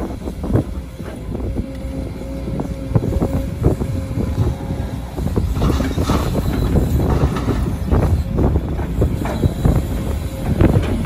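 Sumitomo SH210 hydraulic excavator's diesel engine running under load, with a steady hydraulic whine and knocks from the bucket and rocks. About halfway through, a bucketload of dirt and clods pours into a steel dump-truck bed.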